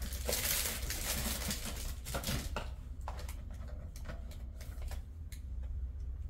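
Plastic snack wrapper crinkling as it is handled and torn open. It thins out after about two and a half seconds to a few scattered crackles and clicks.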